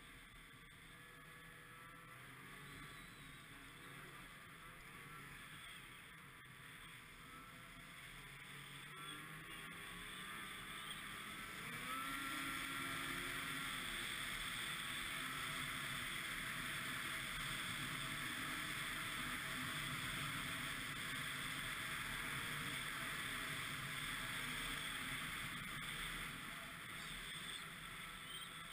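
Ski-Doo MXZ 600 XRS snowmobile engine running, its pitch rising and falling. It grows louder over the first dozen seconds, then holds steady.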